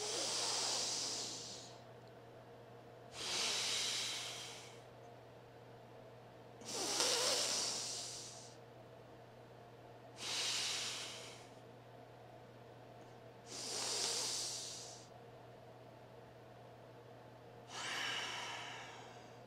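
A man breathing slowly and deeply close to a clip-on microphone: six long breaths, about three to four seconds apart, each starting sharply and then fading away.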